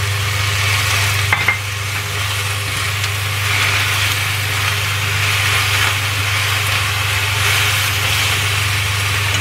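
Choy sum sizzling in a hot frying pan as it is stir-fried with wooden chopsticks, the hiss swelling now and then as the greens are turned. There are two quick clicks about a second and a half in, and a steady low hum runs underneath.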